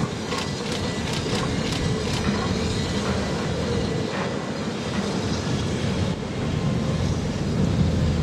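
Train rolling along the track: a steady rumble of wheels on rails, with a few sharp clicks near the start and about four seconds in.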